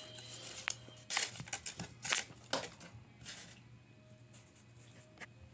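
Paper rustling and crinkling in several short bursts as paper cutouts are handled, over a faint steady low hum.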